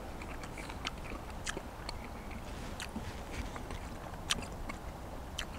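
A person chewing a mouthful of rehydrated beef stew close to a clip-on microphone, heard as faint, scattered small clicks and smacks of the mouth.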